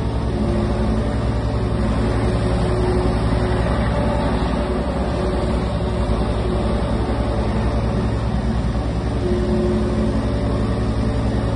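Kubota KX037-4 mini excavator's diesel engine running steadily under load as the boom, arm and bucket are worked and the machine travels a short way on its tracks. A higher tone swells and fades over the engine note a couple of times as the hydraulics are worked.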